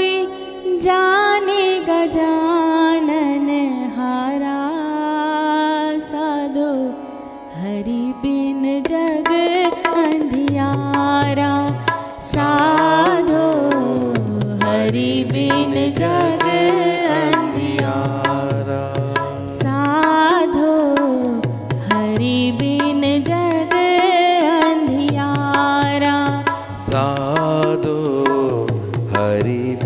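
Indian devotional bhajan music without words: a melodic line that glides and bends in pitch, joined about ten seconds in by a lower rhythmic part.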